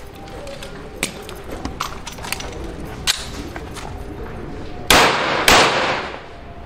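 Two gunshots about half a second apart near the end, each ringing out and fading, after a few fainter sharp knocks.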